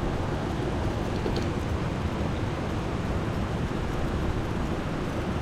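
Steady rushing of a mountain stream: an even, unbroken water noise.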